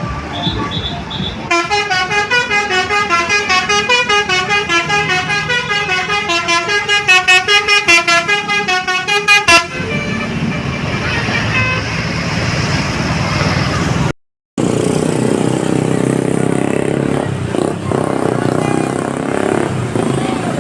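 A bus's basuri telolet musical horn playing a fast multi-note tune for about eight seconds, then cutting off sharply. After it comes the rumble of the bus engine and road traffic, with a brief gap in the sound partway through.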